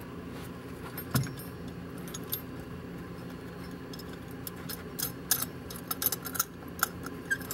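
Small steel fastening hardware (bolts, nuts and washers) clinking as it is handled: one clink about a second in, then a quick run of light metallic clicks in the second half, over a steady low hum.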